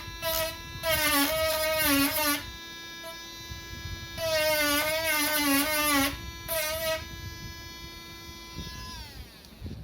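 Handheld rotary tool with a sandpaper tip running at high speed and sanding a plastic laptop palm rest, its whine wavering in pitch as the tip is pressed into the plastic. Near the end it is switched off and winds down with a falling pitch.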